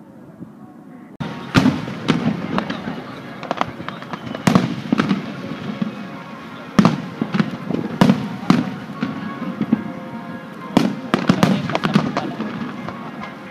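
Aerial firework shells bursting in quick, irregular succession, a string of sharp booms and cracks with rumbling echoes. They start suddenly about a second in and keep going.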